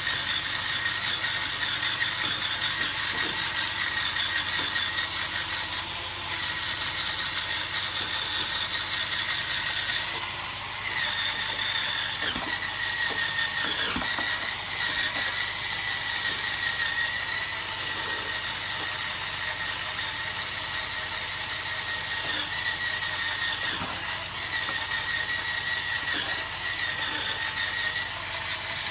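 Hurricane Spin Scrubber's cordless motor and gearbox running with a steady high whine and gear rattle while its spinning brush head scrubs a ceramic sink; the whine wavers slightly in pitch and level as the brush works.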